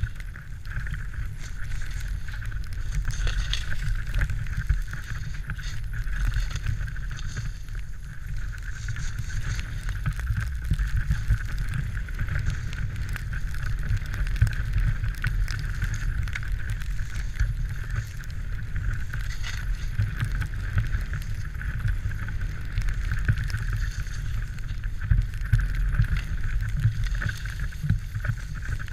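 Steady low wind rumble on the microphone of a pole-held camera moving downhill with a skier, with the continuous hiss of skis sliding over snow.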